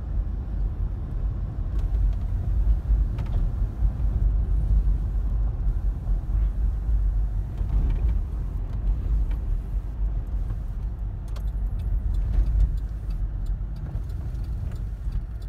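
Low, steady rumble of road and engine noise inside a Chevrolet's cabin as it drives slowly, with a few faint clicks near the end.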